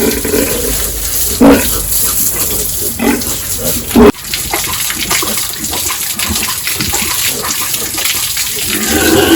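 Pigs calling, with two short loud squeals about a second and a half and four seconds in, over steadily running water.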